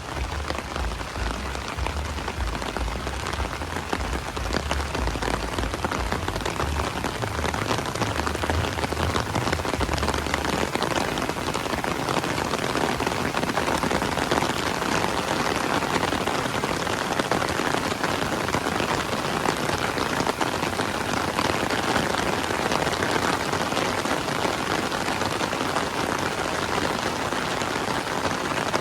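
Heavy rain falling steadily, a dense patter of countless drops. A low rumble sits under it for about the first ten seconds, then stops.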